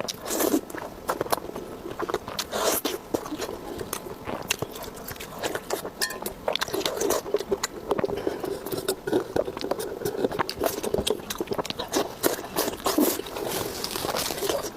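Close-miked eating: a person chewing and biting food, with a steady stream of short sharp mouth clicks and smacks.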